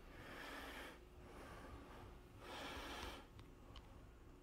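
Faint breathing close to the microphone: two soft breaths, one at the start and one about two and a half seconds in, with two faint clicks soon after the second, over the low hush of a small, quiet room.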